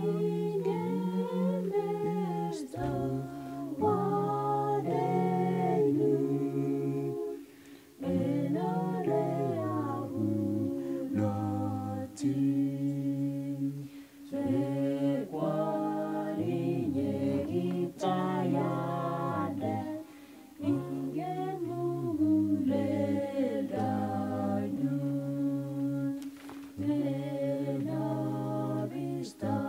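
A vocal group singing a hymn in Kalenjin in harmony, with long held low notes beneath the melody and short breaks between phrases.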